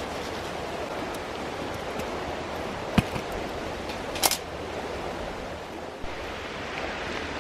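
Mountain stream flowing with a steady rushing sound. A single sharp click about three seconds in and a brief scrape a second later stand out above it.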